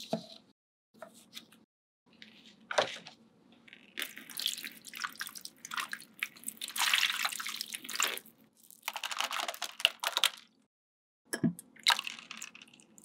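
Water pouring and splashing down a miniature clear acrylic water slide into a small model swimming pool for several seconds, after a few light clicks. Near the end, short splashes as goldfish and water are tipped from a glass into the pool.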